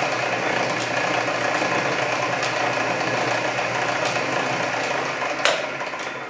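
Canedy-Otto camelback drill press running in back gear at its lowest speed, about 28 RPM at the spindle: a steady hum and whir from the drive with faint clicks from the gearing every second or so. About five and a half seconds in there is a sharper click, and the running sound begins to fade away.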